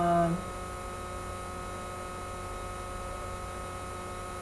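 Steady electrical hum with a faint buzz, several steady tones held at one pitch throughout. Right at the start, a brief half-second 'mm' from a person's voice.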